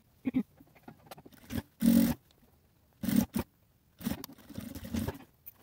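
Several short, irregular bursts of rustling and scraping as fabric and a zipper are handled and smoothed out. The loudest burst comes about two seconds in, and a longer rough stretch follows near the end.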